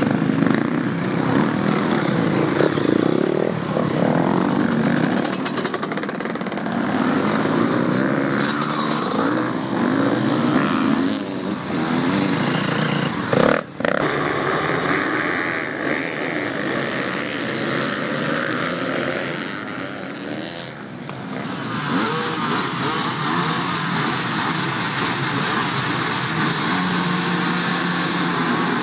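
A pack of motocross motorcycles running together and being revved, engines rising and falling in pitch. The sound breaks off sharply about fourteen seconds in, dips again about twenty-one seconds in, and turns steadier after that.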